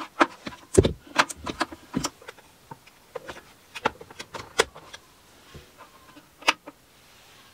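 Plastic clicks and knocks of a power plug and cord being handled and pushed into the socket of an extension cable reel, then a single sharp click about six and a half seconds in as the electric radiator's control dial is turned.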